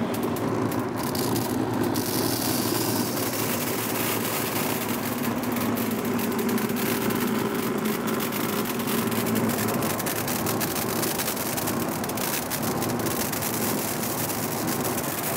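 Winnow Wizard seed-cleaning winnower running: the steady whir of its blower and feed motors, with a fine continuous patter of okra seed falling from the feed tray through the air stream.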